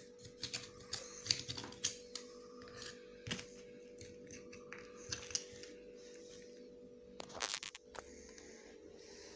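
Irregular sharp clicks and knocks of glasses, dishes and shells being handled on a table during a meal, with a louder brief clatter near the end.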